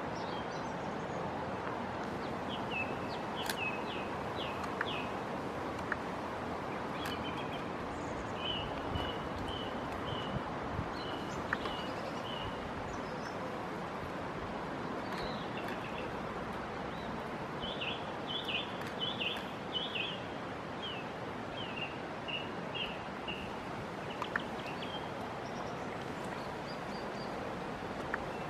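A small bird calling in several runs of short, high chirps, over a steady outdoor background hiss.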